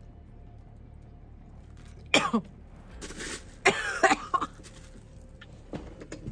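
A woman gagging and coughing on a bite of century egg: a few short, harsh bursts of retching in the middle, one sliding down in pitch, then a couple of faint clicks near the end.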